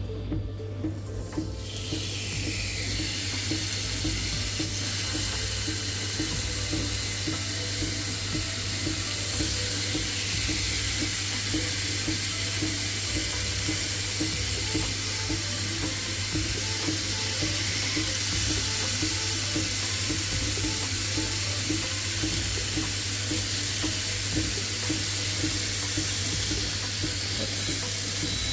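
Pork loin steaks sizzling steadily on the hot plate of an electric grill; the sizzle builds over the first couple of seconds as the meat goes on.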